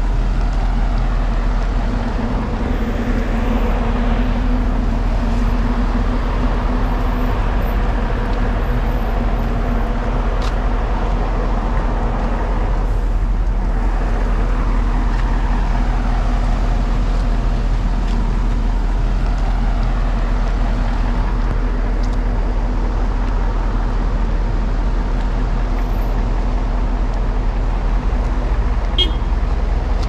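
A motor vehicle's engine running steadily with a low, even hum, like a vehicle idling close by.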